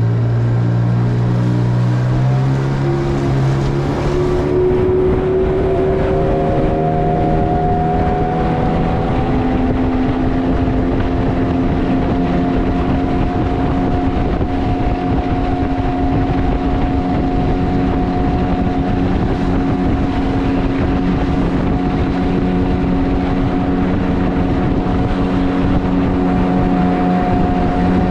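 Boat motor running under way; its pitch climbs over the first several seconds as it speeds up, then holds steady.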